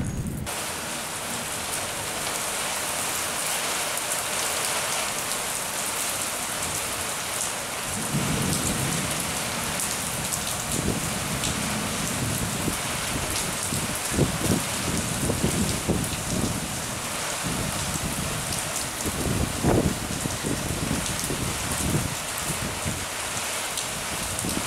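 Steady rain falling, an even dense hiss, with occasional low rumbles and thumps from about a third of the way in.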